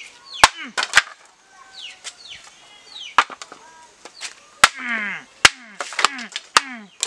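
A homemade bamboo axe chopping a green bamboo tube laid on a wooden stump. About eight sharp, loud strikes come at uneven spacing, with a pause between about one and three seconds in, as the tube splits apart.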